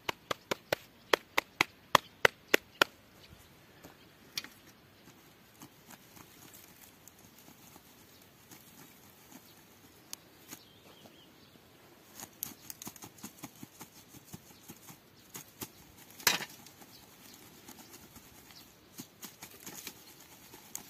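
Metal mesh sieve knocking against the rim of a galvanized steel bucket while wood ash is sifted: a quick run of about a dozen sharp clinks, roughly four a second, at the start, then scattered light ticks and rattles, and one louder knock about 16 seconds in.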